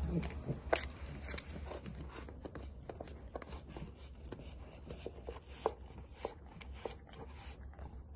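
Small dog licking whipped cream from a paper cup: a run of faint, irregular wet licking clicks, several a second.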